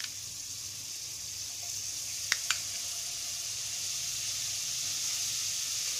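Butter melting and sizzling in a hot pan: a steady hiss that grows slightly louder, with two sharp clicks a moment apart a little over two seconds in.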